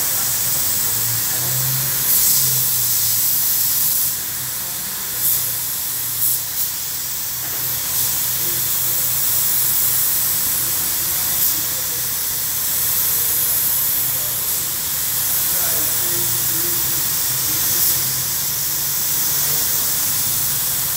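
Compressed-air paint spray gun hissing steadily as paint is sprayed onto a bus's metal side panel, with a few short louder surges, over a low steady hum.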